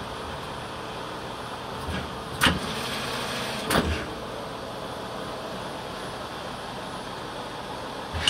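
Mupem WIN 6500 CNC lathe running with a steady machine hum. Two short, sharp louder sounds from the machine's mechanism come about two and a half and four seconds in.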